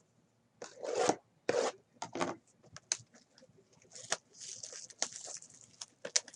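Cardboard and packaging of a trading card box being handled and opened by hand: a click, then a series of short rubbing and scraping strokes.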